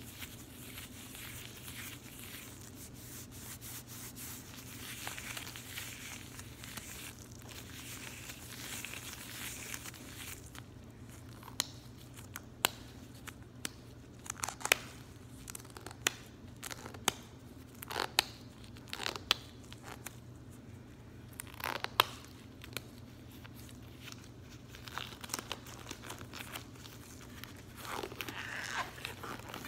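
Latex gloves rubbed and wrung together, a continuous crinkly rustle for the first ten seconds or so. After that comes a run of sharp, scattered snaps and pops from the latex.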